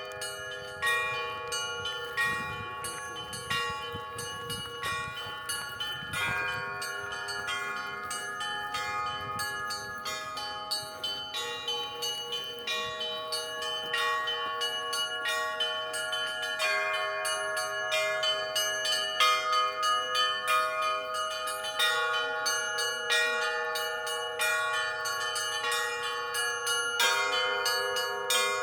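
Russian Orthodox church bells being rung by hand in a continuous rhythmic peal. Several bells of different pitches sound together, the smaller ones struck several times a second while the tones of the larger ones ring on beneath.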